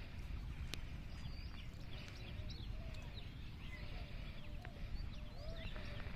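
Many small birds chirping, short calls and quick whistles scattered throughout, over a steady low rumble, with one sharp click about a second in.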